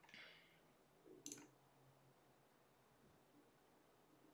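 Near silence: faint room tone with a brief soft hiss at the start and one sharp click about a second in.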